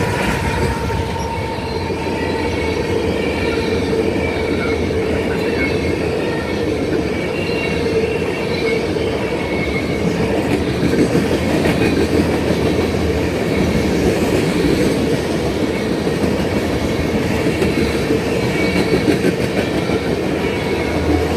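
A freight train of loaded ethanol tank cars rolling steadily past at a grade crossing: a continuous rumble and clatter of steel wheels on the rails.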